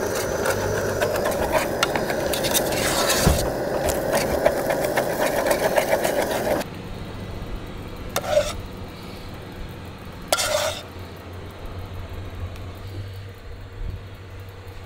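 Cooking sounds at a backpacking canister stove: a steady burner rush with quick clicks and scrapes of utensils on cookware. About six and a half seconds in it cuts off suddenly to a quieter background, with two short scrapes of a spoon against the pot.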